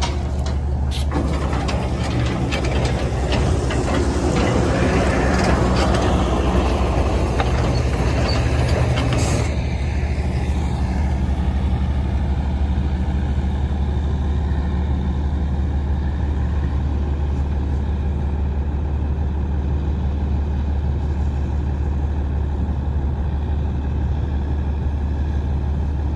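Heavy forage truck's diesel engine idling steadily close by, with a skid loader working. For the first ten seconds or so there is a louder stretch of clatter and rustling with a short hiss near its end, then only the steady idle.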